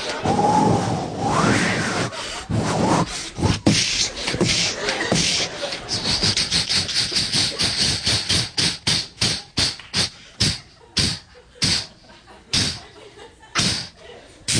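A man's vocal sound effects into a microphone, imitating a steam train. A short gliding call comes first, then a long run of sharp chuffing puffs that come fast and then slow and thin out toward the end, like the train coming to a stop.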